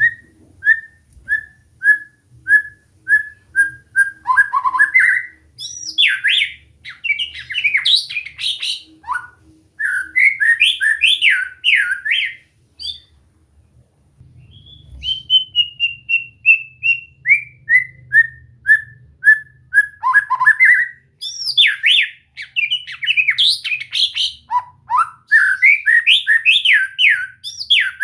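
White-rumped shama (murai batu) singing loud whistled phrases: a run of evenly spaced short whistles on one pitch, then fast rising and falling sweeps. The whole phrase comes again after a short pause about halfway through.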